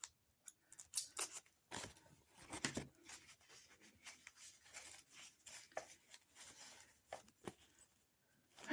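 Hands unwrapping a small packaged item: irregular rustling and tearing of the wrapping, busiest between about two and three seconds in, with scattered small clicks and taps.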